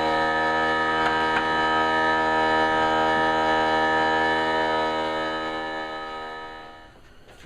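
Background music: a sustained chord held steady, then fading out over the last couple of seconds.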